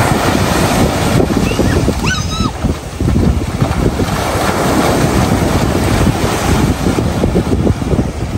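Wind buffeting the microphone over the wash of sea waves, with one short call that rises and falls about two seconds in.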